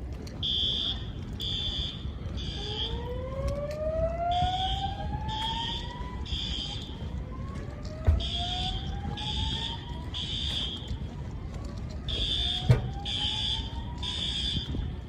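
Notifier fire alarm system's System Sensor L-Series speakers sounding the slow whoop evacuation tone: long rising sweeps, one every four to five seconds. A high beeping tone in groups of three runs alongside, and there are two sharp knocks, about eight and thirteen seconds in.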